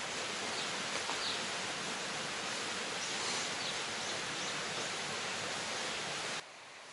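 Steady rushing outdoor ambience of a forest, with a few faint high chirps, cutting off sharply near the end.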